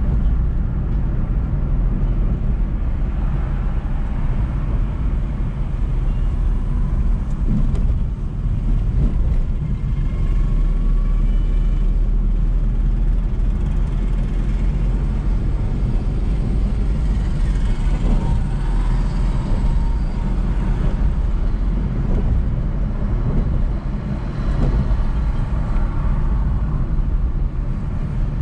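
Car driving along a multi-lane city road: a steady low engine and tyre rumble, with faint higher sounds from the surrounding traffic now and then.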